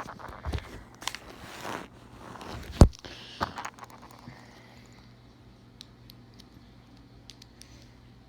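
Small plastic LEGO minifigure parts being handled and pressed together: rustling and clicks, with one sharp knock about three seconds in, then a few faint ticks.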